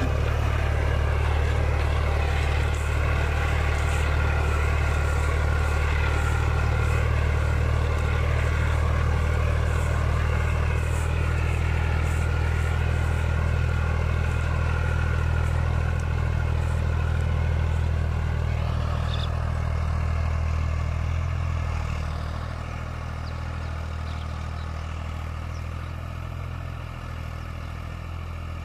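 Ghazi 65 hp tractor's diesel engine running steadily under load as it pulls a mounted disc harrow through the soil, a deep even hum. About three-quarters of the way through the sound drops in level and stays lower.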